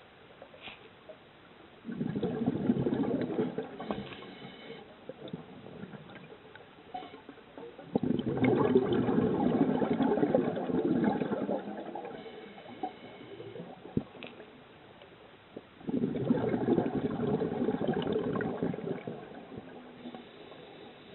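Scuba diver's exhaled air bubbling out of the regulator, three times about every seven seconds, each burst starting suddenly and fading over two to four seconds.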